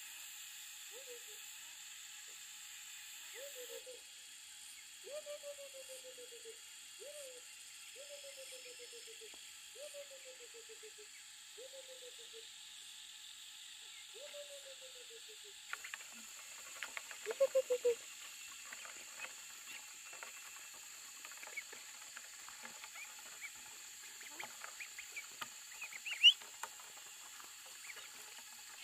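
An animal repeating a short, falling, rattly call about every second or two over a steady high hiss. After about fifteen seconds the calls stop and a scatter of small clicks and taps takes over.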